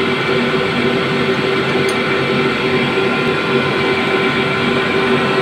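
Steady drone of nearby running machinery, with a hum that wavers regularly in level.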